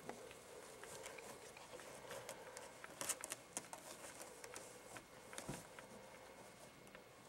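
Soft scratching and rustling of two newborn Chorkie puppies crawling over a quilted puppy pad: scattered small clicks and crackles, busiest about three seconds in and again near five and a half seconds.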